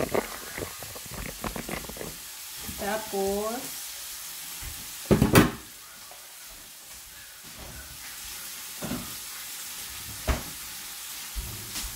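Marinated beef frying in a pan, a steady sizzling hiss. A loud thump about five seconds in and a few lighter knocks come from kitchen handling.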